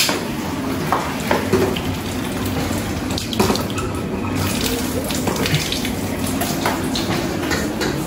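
Kitchen tap running steadily, with a few light clinks and knocks over it.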